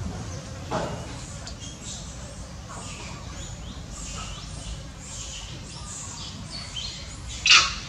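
Short high-pitched insect chirps and buzzing, repeating irregularly, with one loud sharp call about seven and a half seconds in.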